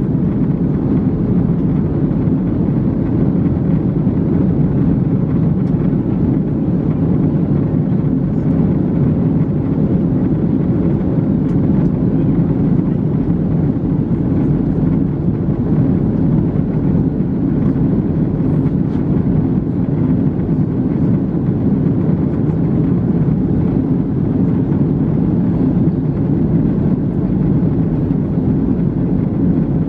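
Steady cabin noise of an Airbus A321neo in flight: a low, even rumble of the jet engines and airflow heard from a window seat over the wing.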